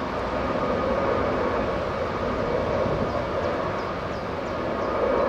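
Antonov An-124-100M's four Progress D-18T turbofans running at low power as the freighter taxis: a steady jet rumble with a thin whine on top.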